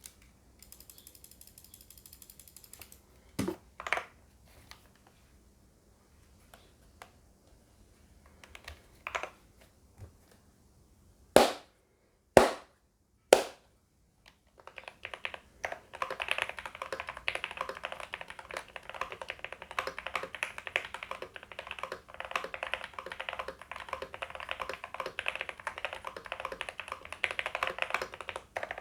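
Motospeed Darmoshark K5 mechanical keyboard with lubed Gateron Pro Red linear switches and PBT doubleshot keycaps: a few separate key strikes and three louder knocks in the first half, then continuous fast typing from about halfway on. The board is foam- and tape-modded, giving a poppy sound.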